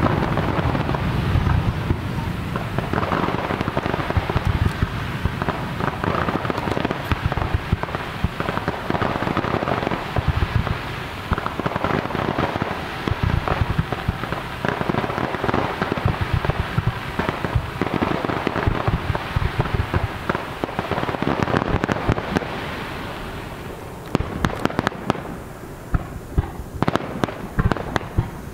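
Fireworks display: a dense, continuous crackle of many small pops. A deep boom is fading at the start. After about 24 s the crackle thins out into separate sharp cracks.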